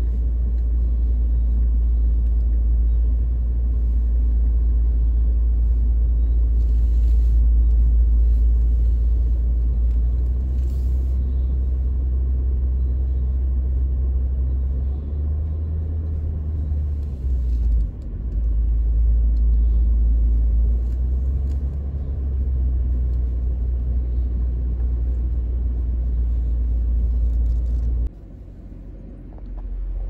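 Low, steady rumble of a car driving, heard from inside its cabin; it drops away sharply near the end.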